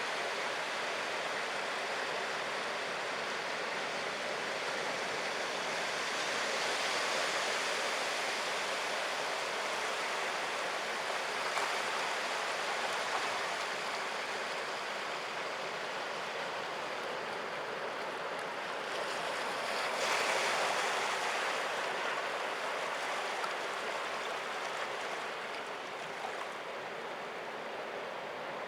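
Sea surf washing over rocks: a continuous rush of waves that swells about seven seconds in and again, loudest, around twenty seconds in.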